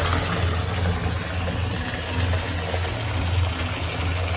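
Water spraying from a handheld shower head: a steady hiss with a steady low hum beneath it.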